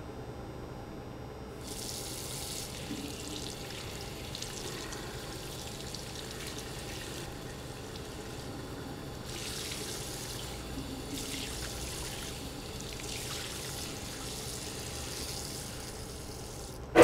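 Water running from a bathroom tap into a sink, a steady splashing hiss that starts about a second and a half in, swells a few times, and stops just before the end.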